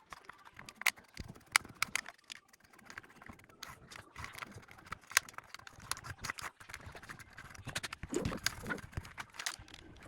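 Plastic keycaps clicking and rattling as they are pulled off and pressed onto a mechanical keyboard's switches. The clicks come irregularly, a few per second, with a duller stretch of handling noise near the end.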